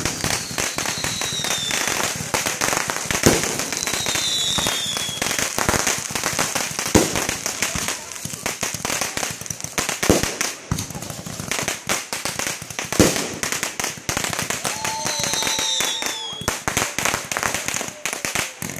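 Aerial fireworks bursting: dense crackling throughout, a heavier boom about every three seconds, and a few falling whistles.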